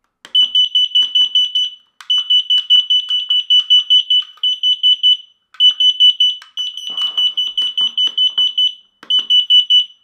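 Carbon monoxide detector's alarm sounding on its test button: a loud, shrill high beep pulsing rapidly, about five times a second, in runs of a few seconds with brief breaks. The alarm is rated at 85 dB and reads about 80 dB on a meter.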